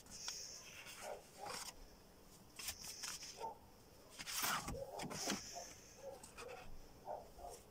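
Sheets of drawing paper being handled and leafed through: repeated rustling and sliding strokes, the loudest about four and a half seconds in.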